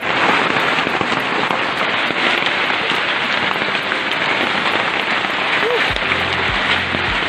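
Hailstorm: hailstones pelting down steadily, a dense patter of many small hits. A few low thumps come in near the end.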